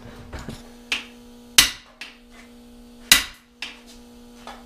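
Hammer strikes on a camshaft bearing installer tool, driving a new cam bearing into an LS 5.3 aluminum engine block: about five sharp metallic taps, irregular and a second or more apart, the second one the loudest. A faint steady hum runs underneath.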